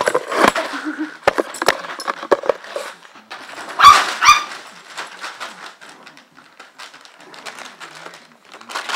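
Two dogs scuffling over a cardboard paper towel tube on a plastic sheet: scrabbling paws, crinkling plastic and scattered knocks, with two quick high-pitched cries about four seconds in.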